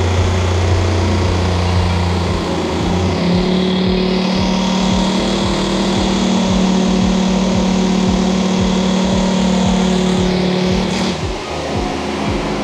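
Electric floor sanding machine running steadily as it sands a wooden floor. Its hum steps up to a higher pitch about three seconds in and falters briefly near the end.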